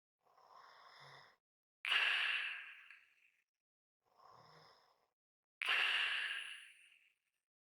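A person breathing slowly and heavily, almost a snore: two full breaths. Each is a quieter in-breath with a light whistle and a faint rasp, then a louder out-breath that fades away.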